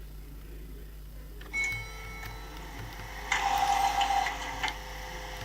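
Lift lobby: a short high electronic beep about one and a half seconds in, as of a lift call button being pressed. About two seconds later comes a louder noisy sound lasting about a second.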